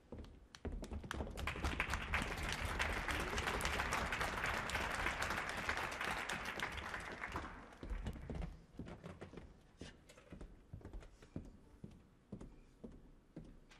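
Audience applause that starts about half a second in and dies away around eight seconds, followed by scattered light knocks and shuffles.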